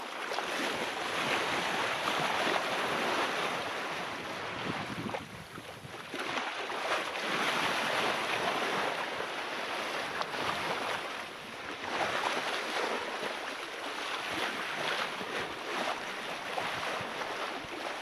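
Wind and sea rushing past a sailboat under way, with wind buffeting the microphone; the noise swells and eases every few seconds.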